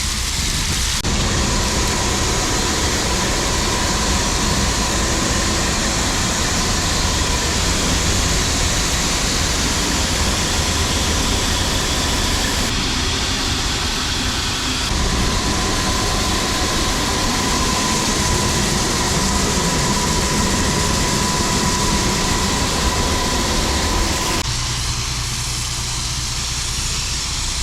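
A tractor engine runs steadily under load while the grain cart's auger unloads shelled corn into a semi trailer, giving a constant rush of pouring grain with a thin whine through most of it.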